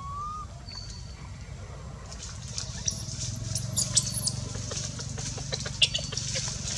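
Newborn monkey giving a few thin, very high-pitched squeaks about three to four seconds in, with dry leaves crackling as it squirms on the ground.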